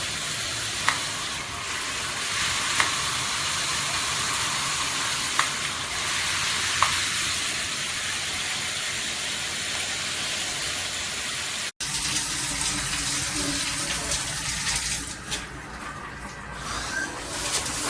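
Shower head spraying water in a steady hiss, with a few short drip-like pings in the first seven seconds. About twelve seconds in the sound drops out for an instant, then resumes less evenly, dipping and swelling.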